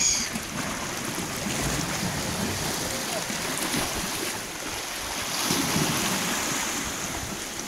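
Sea surge washing over and around a rock ledge: a steady rush of water that swells louder about six seconds in.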